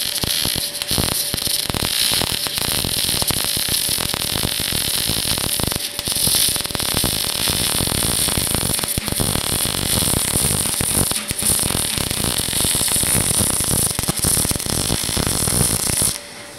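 MAG welding arc laying a vertical-up bead on a pipe: a steady, loud crackling hiss of the wire arc, which cuts off abruptly near the end as the arc is broken.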